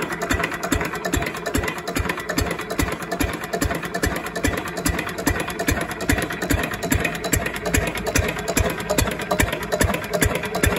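Single-cylinder, twin-flywheel Lister-clone diesel engine running steadily at low speed, rated 8 hp at 850 RPM. Its exhaust beats are slow and even.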